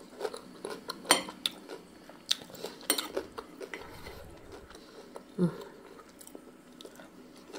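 Metal spoon clinking and scraping against a ceramic plate as salad dressing is scooped up, in scattered light clicks. A short low voice murmur about five seconds in.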